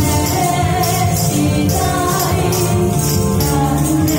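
A woman singing a song into a microphone over backing music, with hand-held tambourines jingling in time with the beat.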